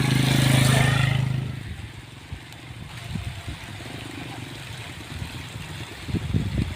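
A motor vehicle engine running loud for about the first second and a half, then fading away. Some dull low knocks follow, a few of them close together near the end.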